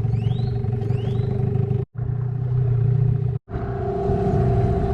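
Small outboard motor of a dinghy running steadily under way, a constant hum. The sound cuts out abruptly twice, for a moment each time.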